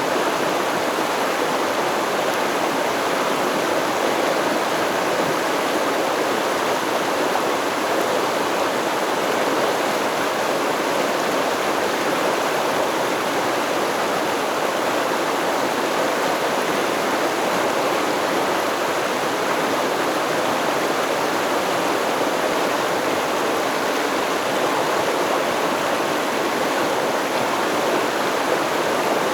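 Stream water flowing and babbling steadily over rocks, a constant rushing wash without breaks.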